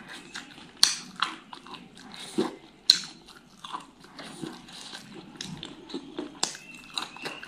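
Close-miked eating sounds: a person chewing food with irregular sharp crunches and wet mouth noises, the loudest crunch about three seconds in.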